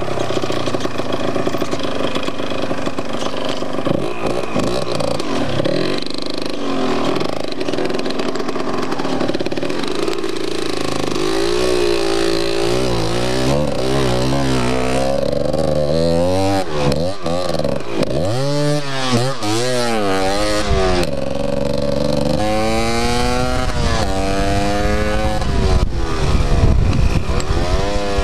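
Yamaha DT 125's two-stroke single-cylinder engine running while the bike is ridden. It sounds fairly steady at first, then from about a third of the way in it revs up and drops back repeatedly.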